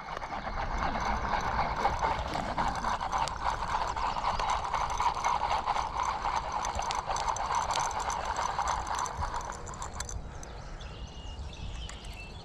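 Fishing reel being cranked to retrieve a lure, a steady whirring rattle of the reel's gears that stops about ten seconds in.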